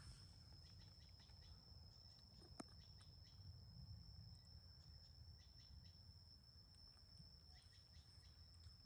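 Near silence: a faint steady high-pitched tone over a low background rumble, with a few faint clicks and one sharper click about two and a half seconds in.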